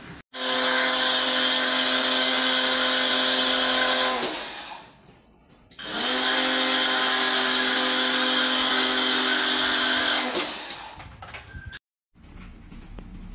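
A small electric motor running at a steady pitch with a strong hiss, in two runs of about four seconds each, switched off in between and stopping again about ten seconds in.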